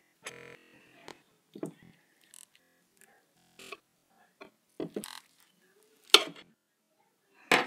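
A table knife working butter slime on a tabletop: scattered faint clicks and scrapes, with one sharper tap a little after six seconds.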